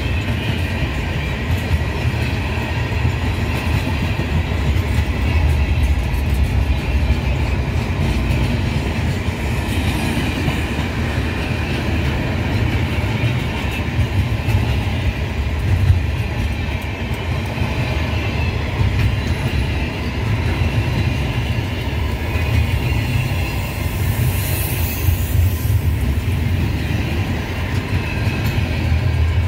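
Loaded container freight cars rolling past on steel rails: a steady heavy rumble of wheels with rail clatter, and a brief high wheel screech about three-quarters of the way through.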